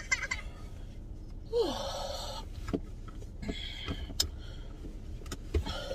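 Car seat belt being pulled out across the body with a rustling whir about a second and a half in, then several light clicks as the latch plate is worked into the buckle, over a steady low hum inside the car cabin.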